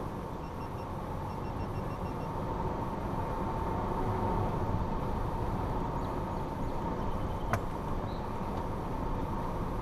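2014 Toyota 4Runner SR5 driving over a rocky dirt trail: steady engine and tyre noise from its 4.0-litre V6 and tyres on gravel. A single sharp click about seven and a half seconds in.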